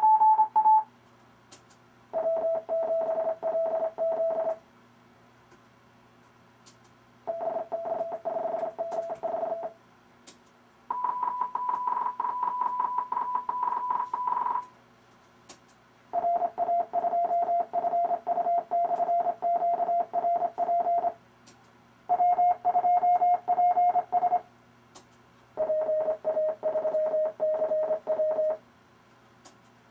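Computer-generated Morse code from RufzXP, a callsign-copying practice program: six amateur radio callsigns sent as rapid beeping groups, each lasting two to five seconds at a different pitch, separated by short pauses. A few faint clicks fall in the pauses.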